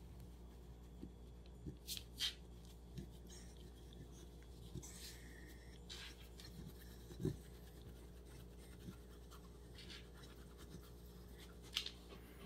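Faint rustling and scratching of a hand rubbing a Welsh Corgi's fur, broken by a few soft clicks and brushes, over a low steady hum.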